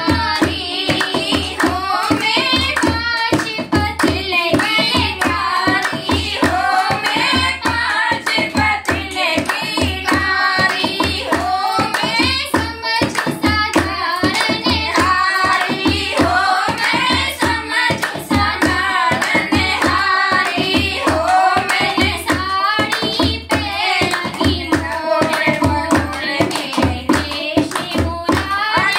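Group of women singing a Hindi devotional bhajan in unison, with a dholak drum beaten in a steady rhythm and hand clapping keeping time.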